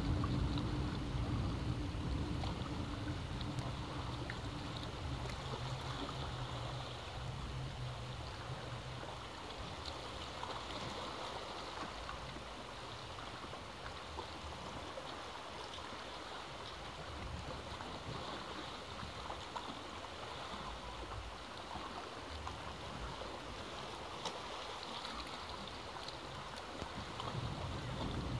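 Sea waves washing against a rocky cliff in a steady, continuous wash of surf. A low steady hum fades out over the first several seconds.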